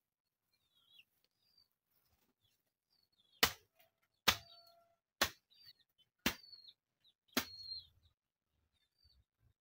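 Hand hoe chopping into soil, five strokes about a second apart starting a few seconds in. Small birds chirp faintly throughout.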